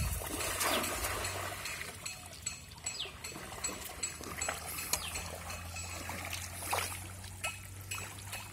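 A cast net hitting shallow river water with a splash about a second in, then water trickling and dripping as the net is hauled back in by its rope.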